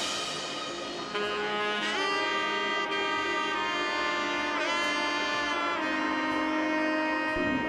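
Background music with long held notes that bend in pitch twice.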